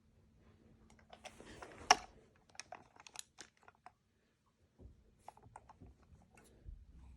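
Plastic farm toys being handled and moved: scattered clicks and knocks, with a short rattling clatter and a sharp clack about two seconds in, and a few soft thumps later.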